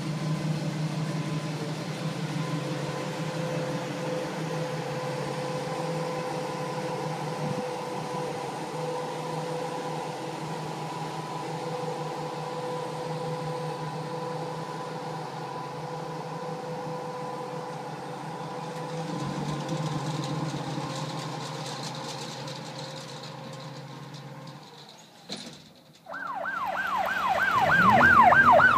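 A steady droning hum with a constant tone. About three seconds before the end an electronic siren starts, wailing quickly up and down and growing loud.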